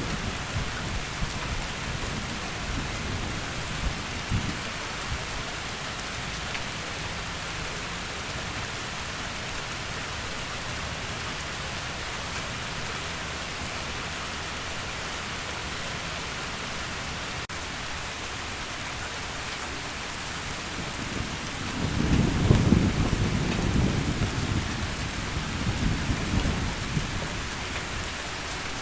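Heavy rain falling steadily, with the tail of a thunder rumble fading at the start. A louder roll of thunder swells up about three-quarters of the way through and rolls away over several seconds.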